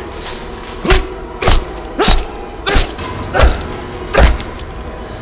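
Six heavy thuds in a steady series, about two-thirds of a second apart, over a low steady background.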